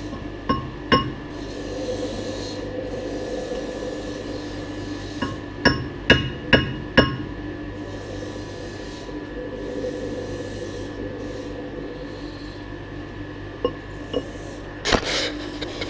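Sharp metallic taps on the steel compressor housing, each with a short ring, as it is trued up in the lathe chuck: a pair about half a second apart at the start, four quick ones around the middle, more near the end. Between them a soft rubbing over a steady shop-machinery hum.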